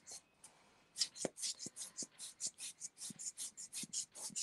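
Quick run of short, breathy puffs of air, about five a second, starting about a second in, blown to push wet alcohol ink across the paper.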